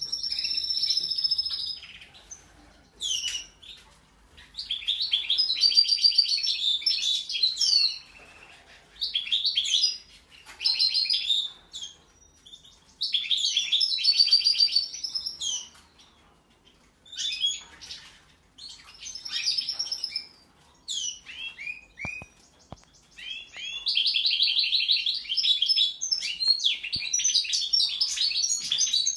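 European goldfinch singing: rapid, twittering song phrases in bursts of a few seconds with short pauses between them, then a longer unbroken run of song near the end.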